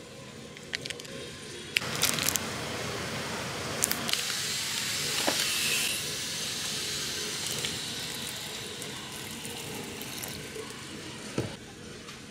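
Self-heating hot pot hissing as water reacts with its quicklime heating pack, rising from about two seconds in and fading away near the end, with a few sharp plastic clicks as it starts.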